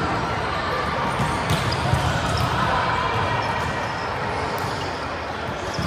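Ambience of a volleyball gym in a large hall: a steady background of voices and players' movement, with two sharp ball impacts, about one and a half and four and a half seconds in.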